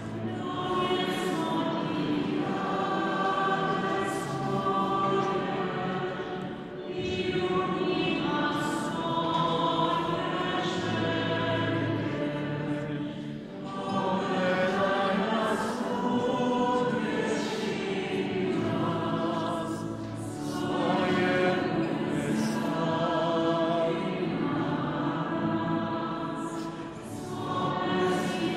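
Church congregation singing a hymn together in sustained phrases, with short breaks about every six or seven seconds.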